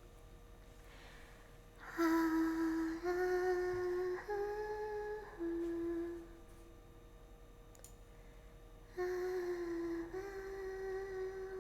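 A young woman's humming in long held notes, a short rising-then-falling tune of four notes from about two seconds in, quiet for a few seconds, then another phrase from about nine seconds in.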